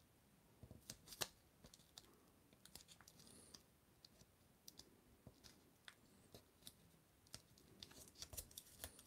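Faint, scattered clicks and crackles of blue painter's tape being pressed and smoothed around a small plastic action figure.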